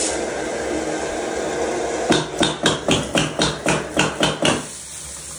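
Water running steadily through a Kohler Purist valve and out of the bathtub spout. From about two seconds in, a quick run of about a dozen sharp knocks, roughly four a second, stops shortly before the end. After the knocks the flow sounds quieter.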